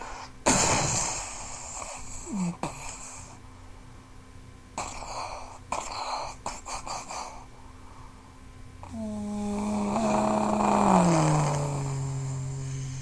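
War-machine sound effects made with the mouth: a sudden explosion-like blast about half a second in that fades away over a couple of seconds, then a few shorter hissing bursts. From about nine seconds a hummed drone glides down in pitch under a swelling hiss, like an engine winding down.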